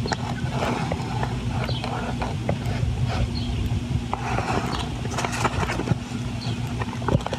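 Newspaper rustling and a pen scratching as it is drawn along a template's edge, over a steady low mechanical hum.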